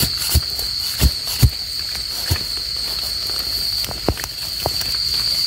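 A steady, high insect chorus, with several dull thuds as a metal digging blade is jabbed into the earth around termite mushrooms.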